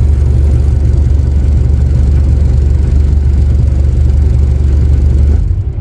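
Hire boat's engine running steadily with a deep, loud hum. Near the end the engine note drops and gets quieter.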